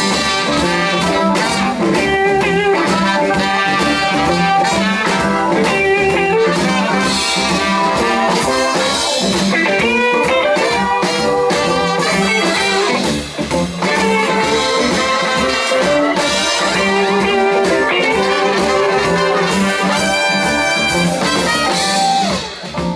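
Live blues band playing an instrumental break, with a horn section and electric guitar.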